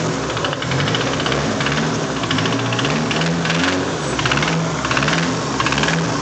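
Nissan SR20DET turbocharged four-cylinder engine running with a fast, even knocking that the owner calls rod knock.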